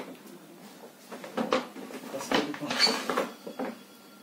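Paper shopping bag rustling and crinkling as hands rummage in it and lift out papers and a cardboard box, in a run of irregular crackles and light knocks through the middle of the stretch.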